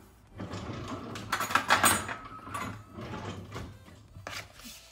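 Kitchen handling noise on a counter: a few seconds of rattling and clinking as utensils and containers are moved, busiest in the middle, with a short scrape near the end.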